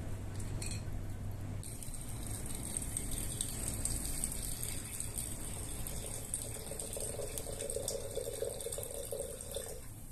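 Steady hiss of water, joined by a lower running-water sound from about six seconds in that stops just before the end.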